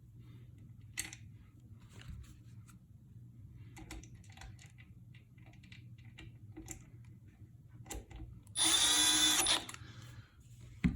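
Faint clicks and handling of parts, then a power drill runs in one short burst of about a second near the end, driving a screw into the ceiling fan's blade assembly.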